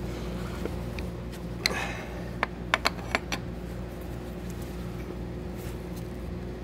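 Two steel open-end wrenches clicking against a plunge router's collet nut and spindle as the collet is tightened on an end mill: a short cluster of sharp metal clicks about two to three seconds in, over a steady low hum.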